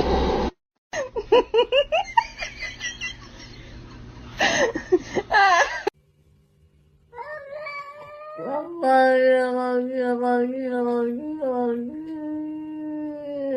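A cat meowing with people laughing over it for the first several seconds. After a brief break, music with held notes takes over.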